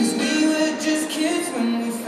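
Recorded pop music with a sung vocal, playing loudly for a dance number.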